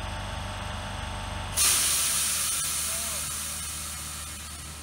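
An electric commuter train's pneumatic system letting off air: a sudden loud hiss about a second and a half in that slowly fades, over a steady low hum from the trains at the platform.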